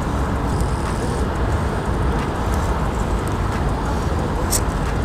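Steady low outdoor rumble, heaviest in the bass, with a single short click about four and a half seconds in.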